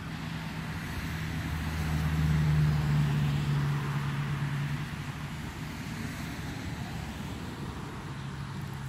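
A motor vehicle passing by: a low engine hum that grows louder to a peak about two to three seconds in, then fades away.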